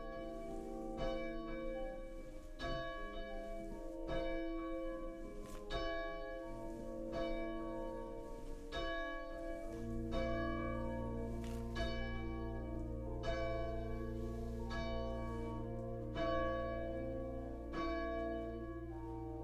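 Church bells ringing a steady sequence of strikes, about one a second, each ringing on under the next. About halfway through a low held tone comes in beneath them.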